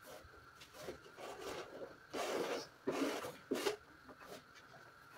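Kitchen knives cutting peppers and onions on wooden cutting boards: soft knocks, with a few louder, longer strokes between about two and four seconds in.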